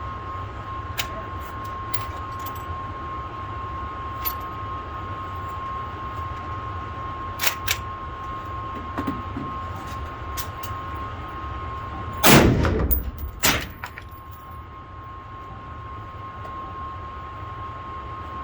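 Two rifle shots about a second apart, the first the loudest, each with a short echoing tail. Fainter sharp cracks of gunfire from elsewhere on the range come earlier.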